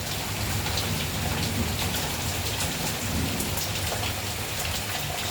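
Steady rain falling, with many individual drops ticking on hard surfaces.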